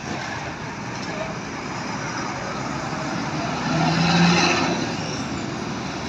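A bus passing close by on the road: engine and tyre noise swells to a peak about four seconds in, then fades.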